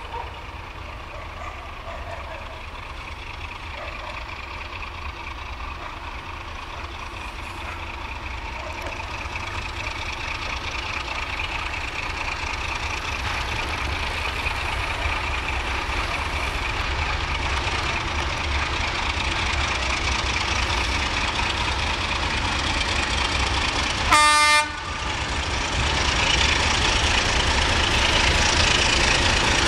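Diesel locomotive engine running with a steady low rumble that slowly grows louder, and one short train-horn blast about four-fifths of the way through.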